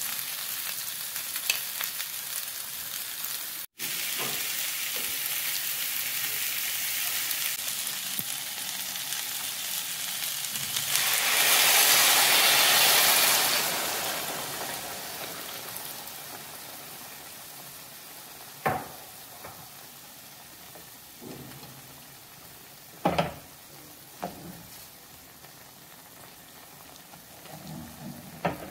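Chicken pieces, potatoes and carrots sizzling as they fry in a pan. The sizzle swells loudly for a couple of seconds as liquid is poured in, then dies down to a quieter simmer. A few knocks of a cooking utensil against the pan follow, clustered near the end.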